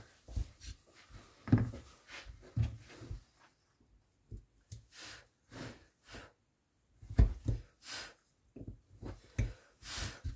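A hand carving tool cutting into wood: a series of short, irregular scraping strokes, with a few soft knocks in between.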